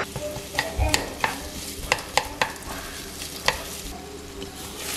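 Sliced onion and garlic sizzling in hot oil in a frying pan, while a wooden spatula stirs them, tapping and scraping against the pan several times in the first few seconds.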